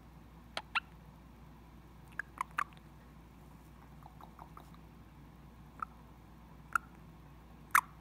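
Indian ringneck parakeet making short, sharp clicking chirps, scattered through with some in quick pairs and a triple, a few fainter ones in the middle and the loudest near the end.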